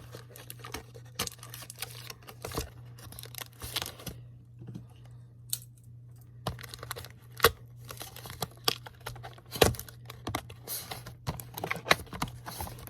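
Handling of cardboard and plastic packaging while model horses are pulled out of a box: irregular clicks, taps and short rustles, with two sharper knocks about seven and a half and ten seconds in.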